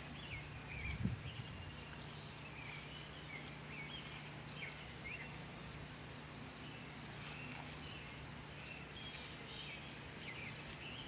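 Birds chirping in the background, many short chirps scattered through, over a steady low hum. A soft low thump about a second in.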